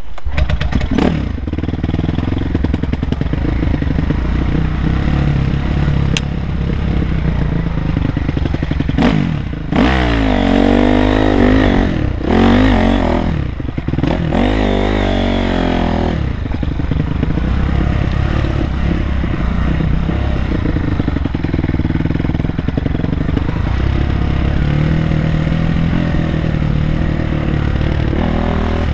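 Honda CRF250R four-stroke single-cylinder dirt bike engine running under load on a rough trail, revving up and down repeatedly between about ten and sixteen seconds in.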